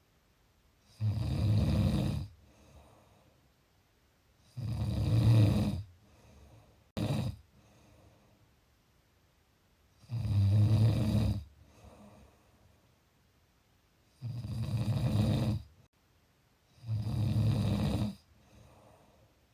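A person snoring: five long, low-pitched snores, one every three to four seconds, each lasting a second or more, plus a short one about seven seconds in. Softer breaths come between them.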